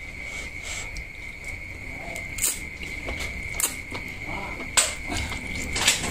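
A person slurping and eating glass noodles, with several short sharp mouth and slurp sounds, the loudest near the end. A steady high-pitched whine runs underneath.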